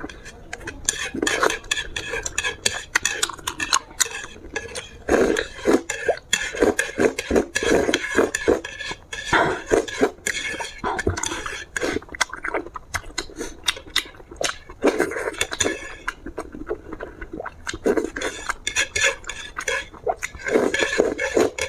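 Utensils clicking and scraping against a bowl in quick, irregular strokes while noodles are eaten fast, close to the microphone, easing off briefly about two-thirds of the way through.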